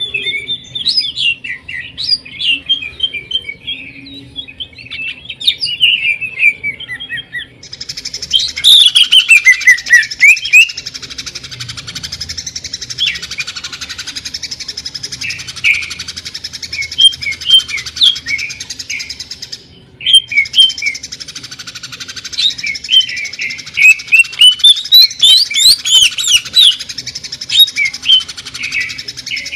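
Greater green leafbird (cucak ijo) singing a fast, varied string of sharp whistled and chattering notes. From about eight seconds in, a harsh, hissing rattle runs under the song and breaks off briefly near twenty seconds.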